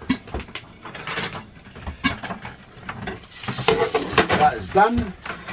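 Metal utensils and a pan lid clinking and knocking against a frying pan on a gas hob, with frying eggs sizzling. The sizzle grows louder about three seconds in as the lid comes off the pan.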